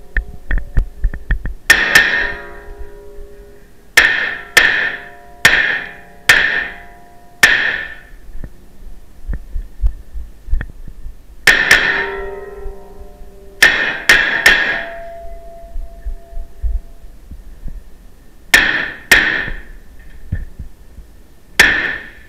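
Rapid 9mm gunfire from a Beretta CX4 Storm pistol-caliber carbine, about sixteen shots fired mostly in quick pairs with pauses of a second or more between strings, each shot echoing briefly off hard walls.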